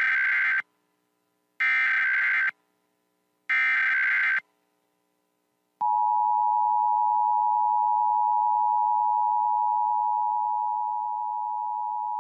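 Emergency Alert System header for the nationwide test: three short bursts of SAME digital data tones, about two seconds apart. About six seconds in comes the EAS attention signal, a steady two-tone chord that runs on and drops slightly in level near the end.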